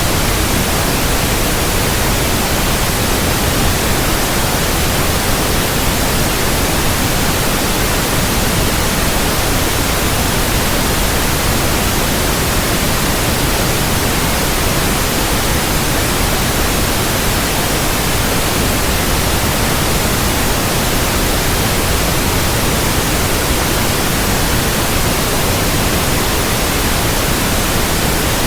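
Steady, loud white noise: an even hiss across the whole range, unchanging, played as a sleep aid for infants.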